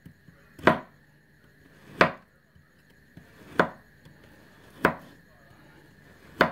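Knife chopping down through a frozen, solid cabana sausage and knocking on a plastic cutting board with each cut: five sharp knocks, a little over a second apart.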